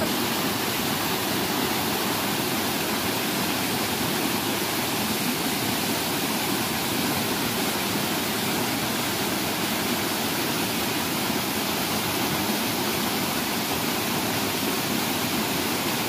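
Small waterfall pouring down a rocky stream bed: a steady, even rush of falling water.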